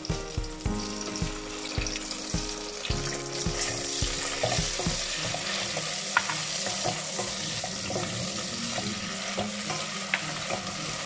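Sliced onion, garlic, ginger and whole spices sizzling in ghee in a metal pot, stirred with a wooden spatula as tomato purée goes in. The spatula knocks sharply against the pot twice in the second half.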